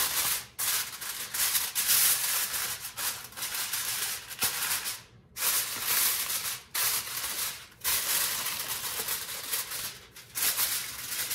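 Aluminium foil crinkling and rustling as hands press and crimp it down over the edges of a baking tray, in long stretches broken by a few brief pauses.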